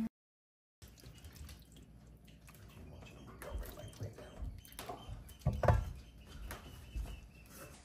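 Faint wet squelching and soft scraping as creamy pasta is scooped with a silicone spoon out of a Staub enamelled cast-iron pot onto a plate. A couple of louder knocks come about five and a half seconds in.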